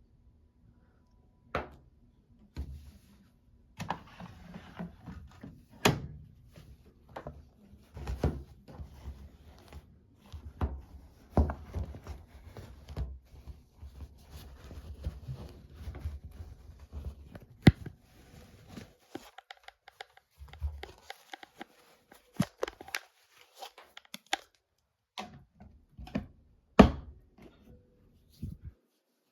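Irregular thunks, knocks and clicks with rustling in between, from a washing machine being handled as a wash cycle is set up: laundry going in, the door and controls being worked.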